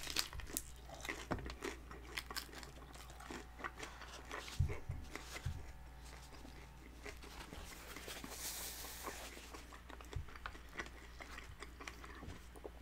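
Close-up biting and chewing of a crispy fried birria taco: the tortilla shell crunches and crackles irregularly between softer wet chewing.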